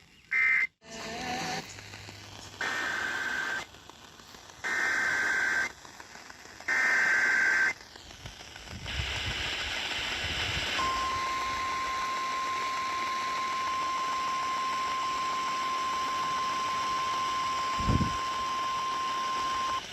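Emergency Alert System SAME header: three one-second bursts of warbling digital data tones, about a second apart. Radio hiss follows, then the single steady NOAA Weather Radio 1050 Hz warning alarm tone, held for about nine seconds, announcing a new tornado warning. A brief low thump sounds near the end.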